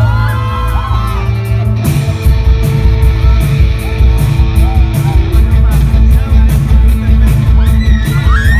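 Live rock band playing: electric guitar, keyboard, bass and drums, with a sung vocal line at the start. About two seconds in the band comes in harder with a steady beat, and the voice returns near the end.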